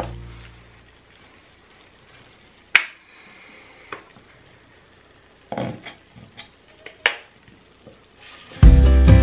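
Guitar music fades out, then a few sharp clicks and knocks of a wooden spoon and a container against a small Trangia saucepan, over the faint sizzle of a bubbling roux sauce. The guitar music comes back near the end.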